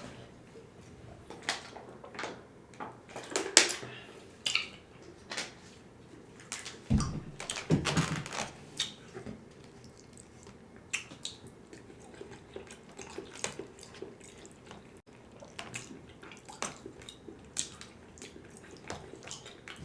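Close-miked eating sounds: wet chewing and lip smacks in short, irregular clicks, with a louder thud and a few louder smacks about seven to eight seconds in.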